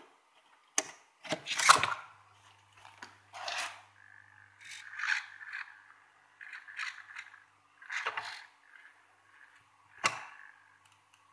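A plug pushed into a power strip gives a few clicks and knocks in the first two seconds. A low hum follows. Then the hobby servo motors of a potentiometer-controlled robot arm buzz and whir in short, irregular spurts, with some handling clatter, as the controls are moved.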